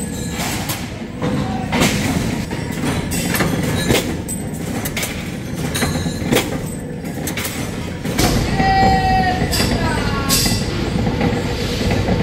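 Steel sheets clanking and knocking against each other over the steady running of workshop machinery. About eight seconds in the din grows louder, with a short squeal and a metallic scrape as a sheet is dragged off the stack.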